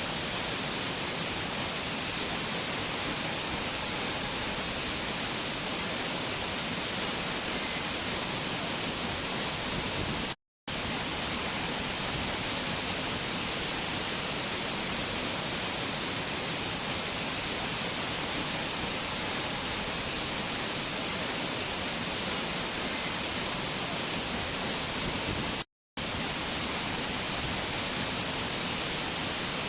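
Waterfall rushing steadily, an even wash of falling water. It cuts to silence for a split second twice, about ten seconds in and again near twenty-six seconds.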